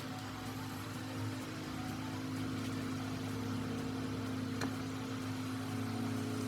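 A steady machine hum, like a motor running, with one faint click about four and a half seconds in.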